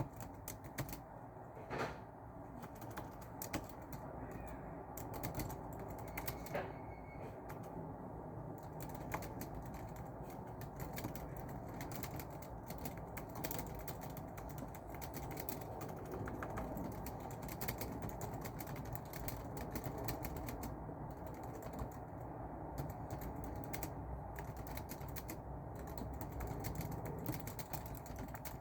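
Continuous typing on a keyboard: rapid, irregular key clicks over a steady low background noise.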